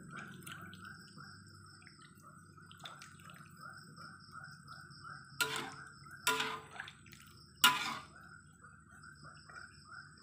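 Coconut-milk stew with jengkol simmering in an aluminium wok while a spatula stirs it, scraping the pan three short, loud times past the middle.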